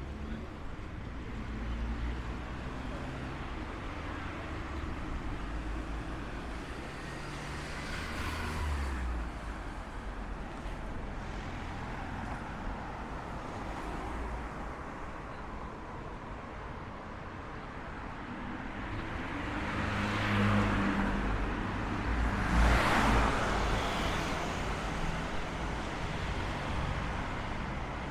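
City street traffic: a steady low rumble of road noise, with cars passing. One swells and fades about a third of the way in, and a louder one goes by about three quarters of the way through.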